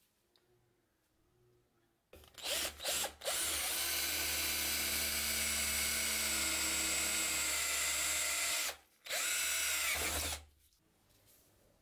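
Handheld electric drill boring a hole through a metal plate clamped in a vise. It starts about two seconds in with a few short trigger blips, then drills steadily for about five seconds, pauses briefly, and runs once more before stopping.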